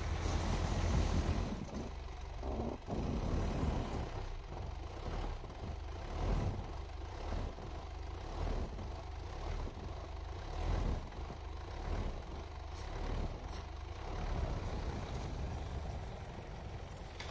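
Mitsubishi Pajero's 4M41 3.2-litre four-cylinder turbodiesel running under load, its revs swelling every few seconds as the SUV rocks forward and back, stuck in deep snow.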